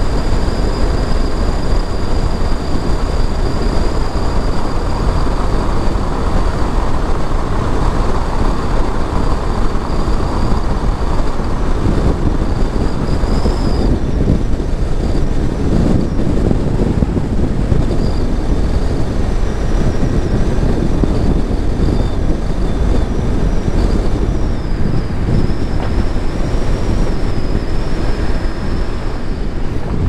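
Car on the move: steady road and engine rumble, with a faint high whine that wavers in pitch.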